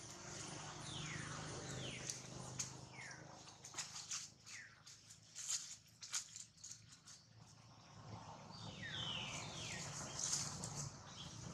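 A series of short, high calls, each falling steeply in pitch, several in a row early on and another cluster about nine seconds in, over scattered faint clicks and rustles of dry leaves.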